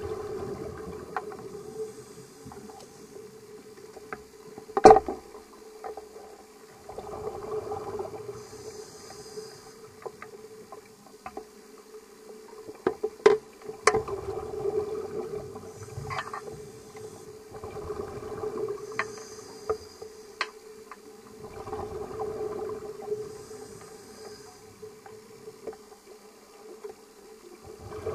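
Scuba regulator breathing heard through an underwater camera housing: a hiss with each inhale and a burst of bubbling with each exhale, about every four to five seconds, over a steady low hum. Sharp clicks and knocks on the housing stand out, the loudest about five seconds in.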